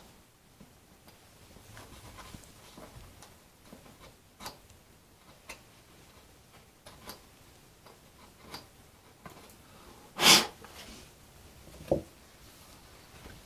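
Scattered small clicks and taps of hand work on balsa model-airplane parts, fitting tight hinges into the control surfaces. About ten seconds in there is a louder, short rush of noise, followed a couple of seconds later by a sharp knock.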